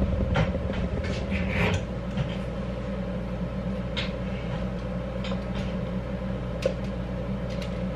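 Wooden spoon scraping thick batter out of a glass mixing bowl, with scattered soft knocks and scrapes, thickest in the first couple of seconds, over a steady low hum.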